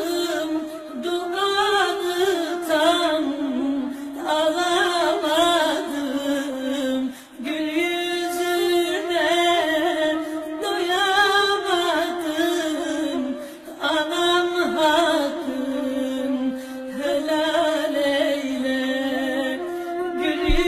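Background music: a slow melody sung by a single voice, held in long bending notes with short breath breaks.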